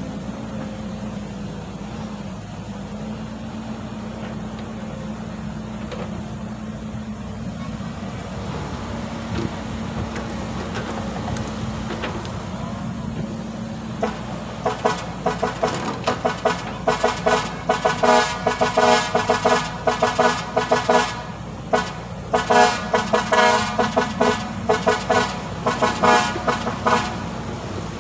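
Hydraulic excavator's diesel engine running steadily while it loads soil into a dump truck. From about halfway through, a horn-like tone sounds over it in many short, irregular blasts.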